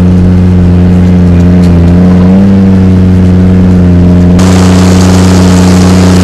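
Snowcat's engine running steadily under load, a low even drone that rises a little in pitch about two seconds in and settles again; more hiss joins in near the end.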